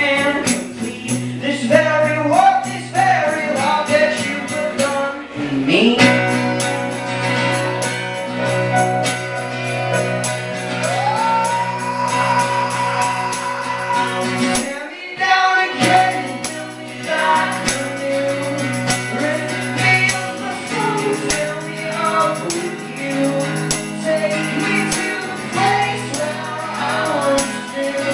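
Live acoustic band music: strummed acoustic guitar and singing over a steady tambourine rhythm, with a brief break about halfway through.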